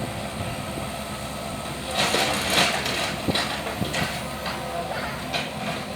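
Mini excavator's engine running steadily, with a stretch of rough scraping and crackling noise from about two seconds in, as the machine works through debris.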